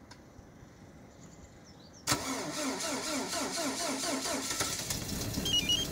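A Lada Granta's four-cylinder petrol engine is cranked by its starter about two seconds in, set off remotely by the car's autostart system in −28 °C frost. It cranks for about three seconds, then catches and settles into running: a cold start on the first try. A couple of short electronic beeps sound near the end.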